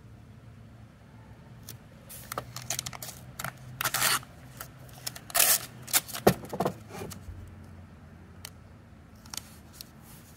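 Wide Ram Board seam tape being pulled off its roll and torn, a run of short ripping strips from about two seconds in until about seven and a half seconds, then a couple of light ticks.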